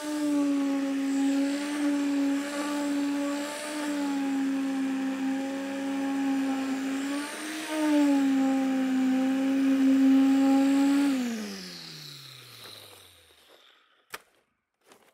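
Concrete poker vibrator running with a steady whine, its pitch dipping briefly a few times as the poker works in the wet concrete. About 11 seconds in it is switched off and winds down, the whine falling in pitch as it fades, followed by a couple of faint clicks.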